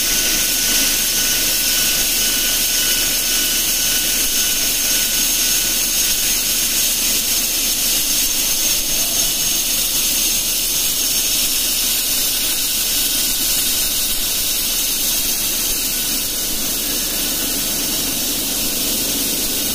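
Abrasive belt grinder sanding a rotating steel bottle in a CNC polishing fixture, throwing sparks. A steady hiss of the belt on the metal, with a faint high whine held throughout.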